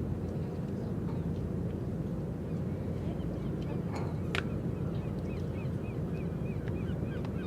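A steady low rumble, with a bird calling in a quick series of short, high notes from about three seconds in.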